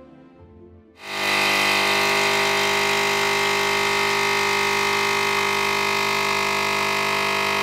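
Capsule espresso machine's pump running with a loud, steady hum while coffee pours into the cup. It starts suddenly about a second in.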